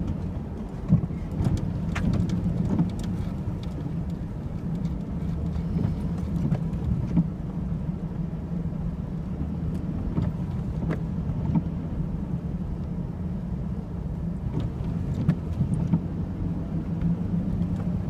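Four-wheel-drive Chevrolet Silverado pickup driving slowly, heard from inside the cab: a steady low engine and road hum, with scattered faint ticks and crackles.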